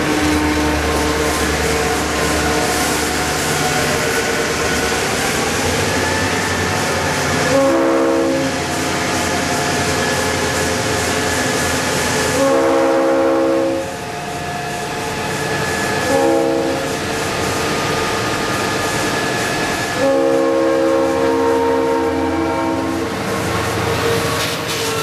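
Diesel freight locomotives running close by, with the steady rumble of their EMD two-stroke engines and rolling wheels. The locomotive horn blows the grade-crossing signal: two long blasts, a short one, then a final long blast.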